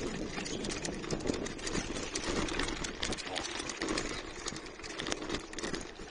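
Bicycle rolling over cobblestone paving, with an irregular rapid rattle and knocking from the jolting bike and its handlebar phone mount, heard through the phone held in that mount. The rattle eases about six seconds in as the tyres reach smooth asphalt.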